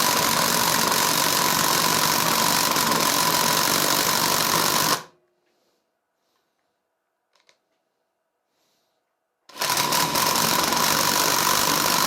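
Parkside Performance PDSSAP 20 Li B2 brushless cordless impact driver hammering under heavy load, a dense rapid rattle, as it bores a 40 mm bit into a wooden beam. It runs for about five seconds, stops for about four with a faint click in the pause, then runs again for about three seconds. The bore is too heavy going for the tool.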